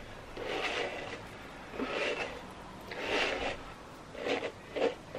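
Pink plastic detangling hairbrush pulled through wet hair: several separate rubbing strokes, one every second or so.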